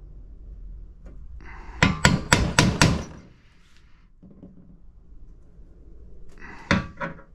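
Hammer striking a center punch to mark bolt-hole positions through a paper template onto metal radar mounting plates: a quick run of about five sharp taps about two seconds in, then two more near the end.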